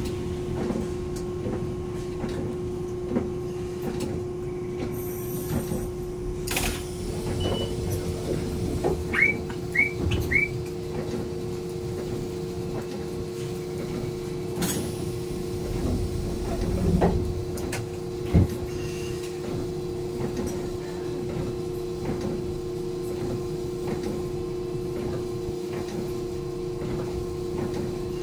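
Steady electrical hum inside a Randen high-floor tram as it stands on the street track, with a second hum tone joining about a quarter of the way in. There are a few sharp clicks and three short rising chirps about a third of the way through.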